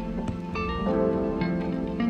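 Background music: a plucked string instrument playing slow, sustained notes over a steady chord.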